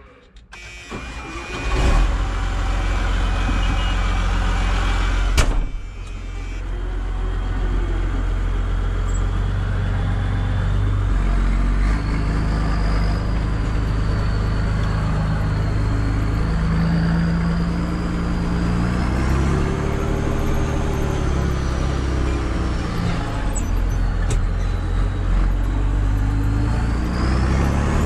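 Massey Ferguson 6180's straight-piped six-cylinder turbo diesel starting up and catching within the first two seconds, heard from inside the cab. A sharp knock comes about five seconds in. The engine then runs and changes pitch as the tractor moves off, with a high whistle wavering up and down through the second half.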